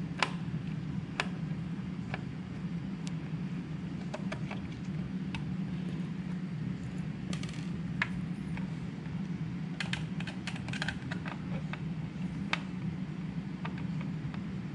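Irregular small clicks and ticks of a screwdriver turning out the small screws that hold a display panel, with a few quick runs of clicks, over a steady low hum.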